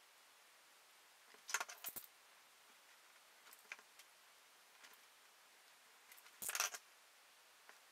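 Two short bursts of light scratching and clicking, about a second and a half in and again near six and a half seconds, with a few faint ticks between: a Speedball lino carving tool cutting into a soft Speedy Cut rubber block.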